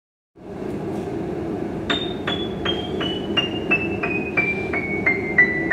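Chappell upright piano played as a descending run of single notes, starting near the top of the keyboard about two seconds in and stepping down evenly at about three notes a second, over a steady background noise.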